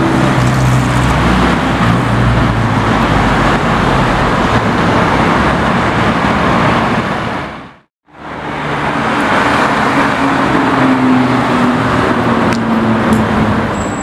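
City street traffic: cars driving past with a steady engine hum and road noise. The sound drops to silence for a moment about eight seconds in, then the traffic noise resumes.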